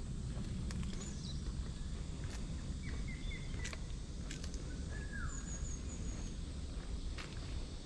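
Outdoor woodland ambience: small birds chirping in short series of quick notes, some falling in pitch, over a steady low rumble, with scattered sharp ticks.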